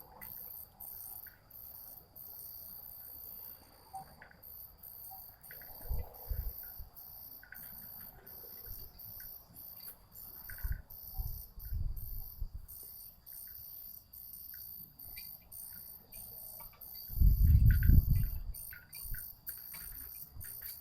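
Night insects, crickets by their sound, chirping steadily and high, with scattered faint ticks. Low gusts of wind buffet the microphone now and then, the strongest near the end.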